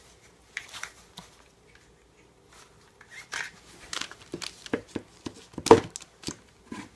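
Handling noise from a plastic bag crinkling and a small bar clamp clicking as it is put on and tightened over a bagged wooden block against a particle-board box. The clicks and rustles are sparse at first and come thicker in the second half, with the sharpest clicks near the end.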